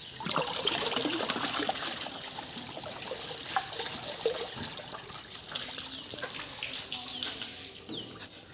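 Water splashing and trickling out of a jar fish trap as it is opened and emptied, starting suddenly and loudest in the first second or two, with small knocks and clicks mixed in.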